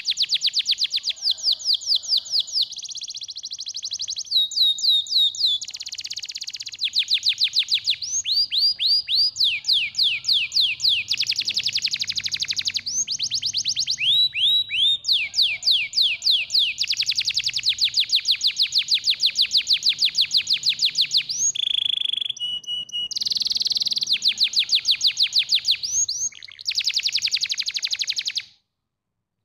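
Canary singing a long song of fast trills, each phrase a quick run of repeated notes, switching to a new phrase every second or two. The song stops abruptly about a second before the end.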